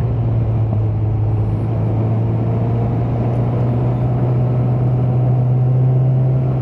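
Suzuki GSX650F's inline-four engine running at a steady, constant pitch while cruising, under a steady rush of wind.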